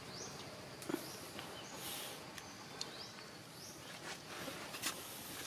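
Quiet outdoor ambience: short, high, rising chirps repeat roughly every second over a faint hiss, with a couple of sharp clicks and a brief rustle.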